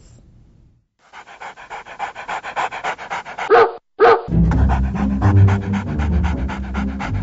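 A dog panting in a quick, even rhythm that grows louder, with two short voiced sounds about three and a half and four seconds in. A music bed with low held notes then comes in under the panting, as a title jingle.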